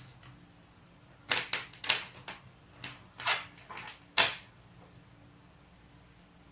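Tarot cards being handled and laid down on a table: a quick run of about eight sharp clicks and slaps over about three seconds, starting about a second in.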